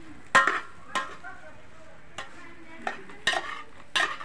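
Metal slotted spatula stirring grains in a large metal pot over a wood fire, scraping and knocking against the pot in irregular strokes, over a faint frying sizzle.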